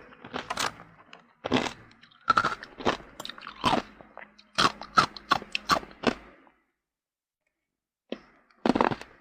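Ice being bitten and chewed close to the microphone: a quick run of sharp, irregular crunches. After about six seconds the sound cuts out completely for over a second, then the crunching starts again near the end.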